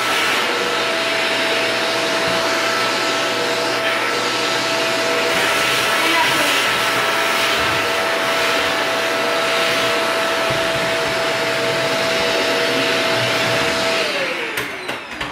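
Vacuum cleaner running steadily with a constant motor whine. Near the end it is switched off and the whine falls in pitch as the motor winds down, followed by a few clicks.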